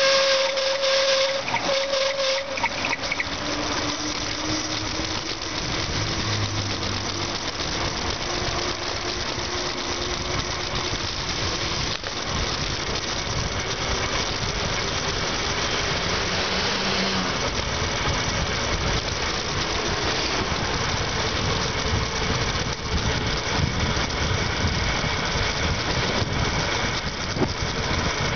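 Wind rushing over the camera's microphone, with tyre and road noise, while a bicycle descends a road among traffic. Car engines pass now and then, and a high whistling squeal dies away in the first couple of seconds.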